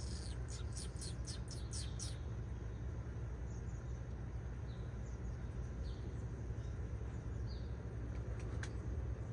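Small bird giving a quick run of about eight high, downward chips in the first two seconds, then a few scattered single high chips and one sharp click near the end, over a steady low rumble.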